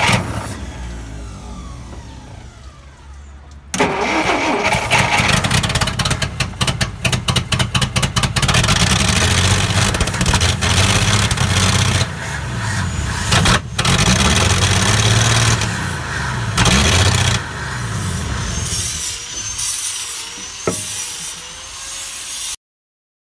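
Dodge D300's slant-six engine firing on fuel poured into the carburettor: a first burst that fades, then it catches again about four seconds in, sputters, and runs roughly, revving up and down, with fuel spitting back out of the open carb. It is a first start after the truck has stood for years. The sound cuts off abruptly near the end.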